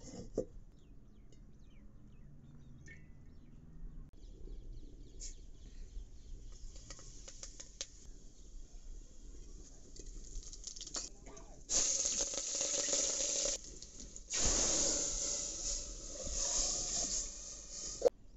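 Tempering sizzle in an aluminium pot: cumin seeds hitting hot oil and then the curd-and-gram-flour kadhi batter going in, heard as two loud spells of sizzling that start suddenly about twelve and fourteen and a half seconds in. Faint scattered crackling comes before them.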